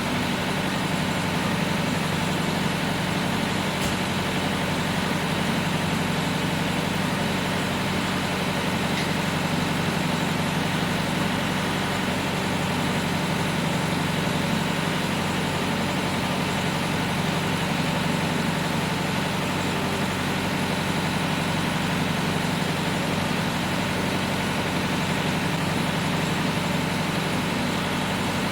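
Farm tractor engine running steadily, with no change in speed.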